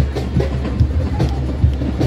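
Drums beating a steady, fast rhythm of about two and a half beats a second, with a general din behind it.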